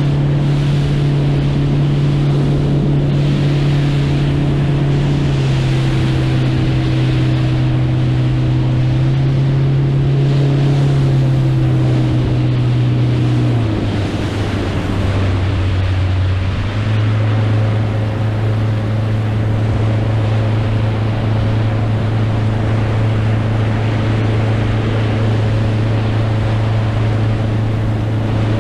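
Motorboat engine running with a steady drone under wind and water rush. Its pitch steps down about halfway through as the throttle eases, then holds steady at the lower speed.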